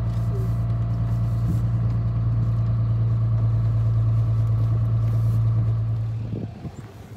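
Pickup truck engine running at a steady low drone, heard from inside the cab while driving; the drone drops away about six seconds in.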